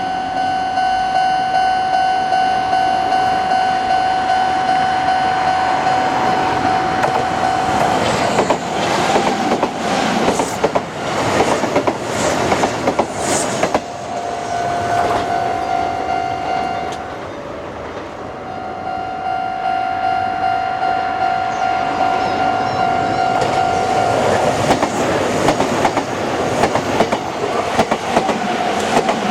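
Japanese level-crossing alarm ringing with a steady electronic tone while an electric train passes over the crossing, its wheels clattering over the rail joints. The alarm stops briefly just past the middle, then rings again as another train clatters through near the end.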